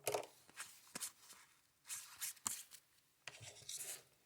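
Baseball cards being slid off a stack and flipped over in the hands: a series of short, irregularly spaced papery rubs and flicks of cardboard against cardboard.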